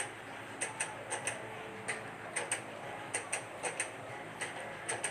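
Light clock-like ticking, short sharp clicks at roughly two to three a second, often in close pairs, over a faint steady background hum.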